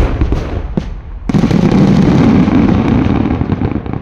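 Aerial fireworks shells bursting. A few sharp cracks come first, then a sudden loud boom about a second in, with a long rumbling echo that fades near the end.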